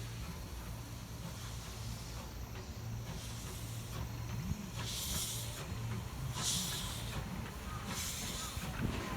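Steam locomotive dressed as Thomas the Tank Engine moving off slowly while shunting. Its exhaust chuffs begin about five seconds in, one roughly every second and a half, over a low steady hum.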